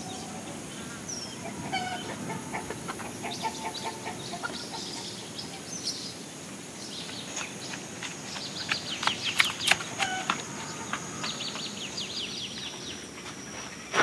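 Chickens clucking in short calls, over a steady high whine, with a cluster of sharp clicks and knocks about nine to ten seconds in.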